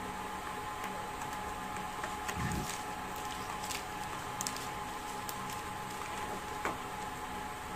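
Cardboard phone box and its paper inserts being handled: scattered light taps and clicks and a soft low thump about two and a half seconds in, over a steady hiss with a faint hum.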